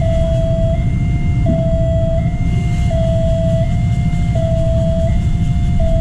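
Railway level-crossing electronic warning siren sounding a two-note alarm, the notes alternating about every three-quarters of a second, warning that a train is approaching. A steady low rumble runs underneath.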